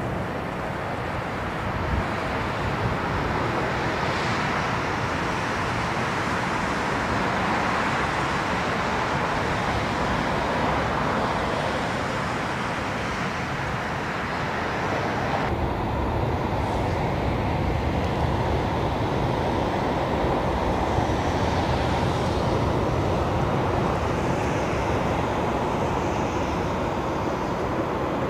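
Steady jet engine noise from a Boeing 747-8's four GEnx turbofans on the airfield. About halfway through, the sound changes abruptly and turns duller, with less hiss.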